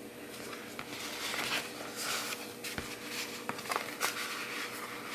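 Cardstock cards and paper rustling and sliding against each other as a stack of photo cards is shuffled and tucked into a paper pocket, with a few light taps and clicks between about three and four seconds in.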